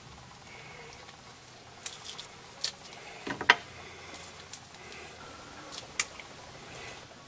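Crisp, syrup-soaked jalebi crackling as fingers break the coils apart: several sharp crunches between about two and six seconds in, the loudest around three and a half seconds. The crunch is the sign of a crispy, crunchy jalebi.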